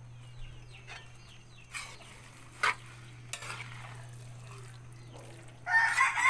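Metal spoon stirring spaghetti in an aluminium pan, with a few separate clinks of the spoon against the pan about a second apart. A rooster crows loudly near the end.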